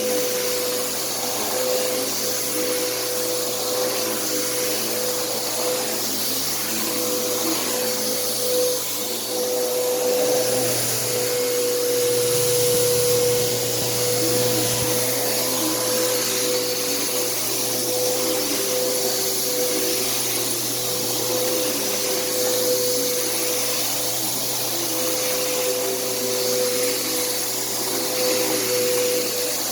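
Bissell CleanView bagless upright vacuum running continuously, its motor holding a steady whine while the airflow sound wavers slightly in pitch as it is worked back and forth.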